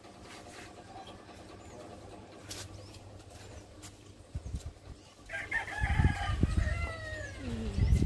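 A rooster crowing once, about five seconds in: a long pitched call that falls away at the end. Low thumps come around the same time and again near the end.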